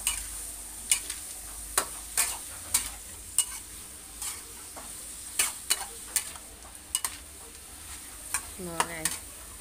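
Snails in their shells being stir-fried in a stainless steel wok over a steady sizzle. The spatula scrapes the wok and strikes it in irregular sharp clicks.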